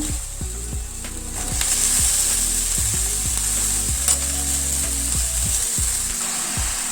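Chopped ivy gourd sizzling as it fries in oil in a pan, the sizzle growing stronger about a second and a half in, with a single click near the middle.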